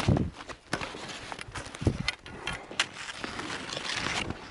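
Skis and boots crunching and scraping in packed snow in an irregular walking rhythm, with sharp crunches every half second or so.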